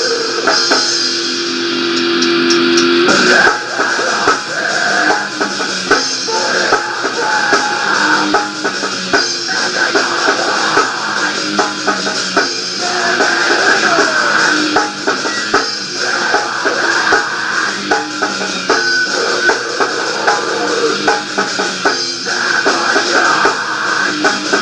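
Rock band playing on a lo-fi demo recording: electric guitar and drum kit. A chord rings out for about the first three seconds, then the band drives into a steady rhythmic passage.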